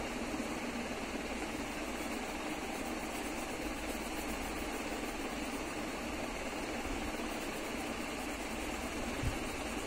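Steady, even background hum with no clear rhythm, and a single soft knock about nine seconds in.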